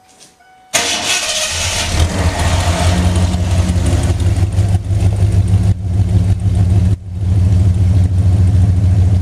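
A Ford 351 High Output V8 starts up about a second in and settles into a steady, deep idle through a MagnaFlow muffler and a side-exit tailpipe.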